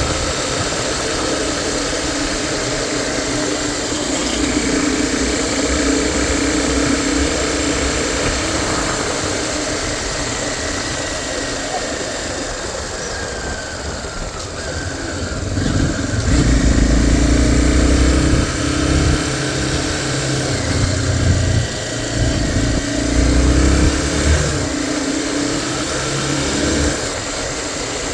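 Tornado 250 motorcycle engine running steadily. About halfway through it gets louder, with uneven low surges for several seconds, then settles back.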